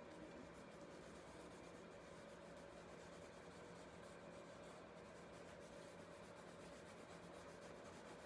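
Faint scratching of a burnt wooden stick's charcoal tip drawn across brown paper in many short strokes, over a steady low hum.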